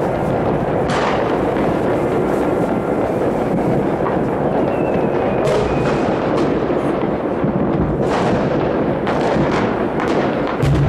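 Fireworks and firecrackers going off all over a city at once: a continuous rumble of many bangs and crackles, with several sharper, louder reports standing out and a couple of faint rocket whistles.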